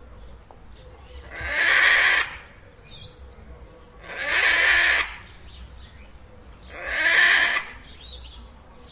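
Macaw squawking: three harsh calls, each about a second long, evenly spaced roughly two and a half seconds apart.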